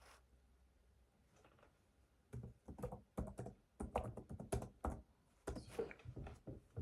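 Typing on a laptop keyboard: irregular runs of key clicks and taps, starting a couple of seconds in.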